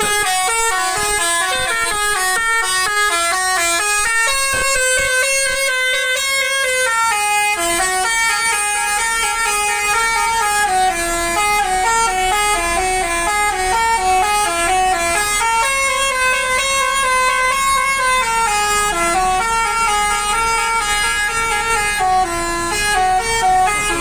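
A basuri multi-tone air horn on the STJ Draka Mercedes-Benz tour coach plays a long melody. Several horn notes step up and down in quick runs, with a couple of longer held chords, loud and without a break.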